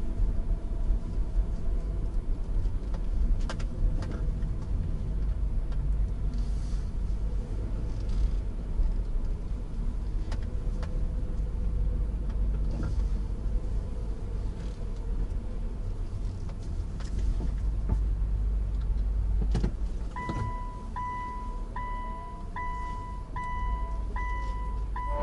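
Low cabin rumble of a car driving slowly, with a few short knocks. From about 20 seconds in, a high electronic beep repeats steadily, roughly three beeps every two seconds.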